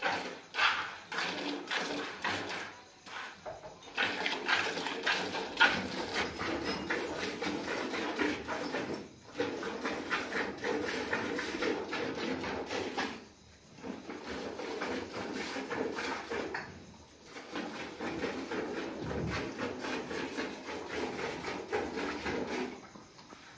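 Cow being milked by hand: streams of milk squirting into a plastic bucket already partly full of milk, in a steady rhythm of strokes, broken by short pauses a few times.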